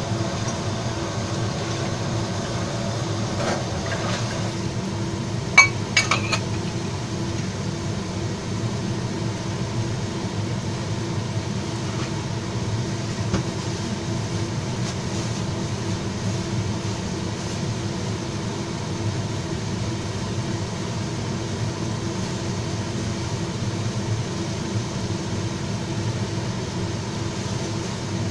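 Pork and celery stir-fry cooking in a wok over a gas burner, under a steady hum. A few sharp dish clinks come about six seconds in, and a single one a little later.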